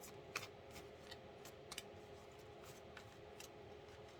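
Tarot cards being handled: faint, irregular light clicks over a low steady room hum.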